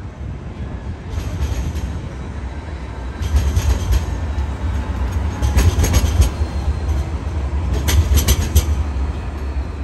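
Alstom Citadis light rail tram passing close at street level: a low rumble from its running gear that grows louder about three seconds in, broken by three clusters of sharp clacks from the wheels on the rails.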